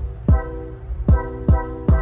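Background music: an electronic track with a steady kick-drum beat under held synth chords.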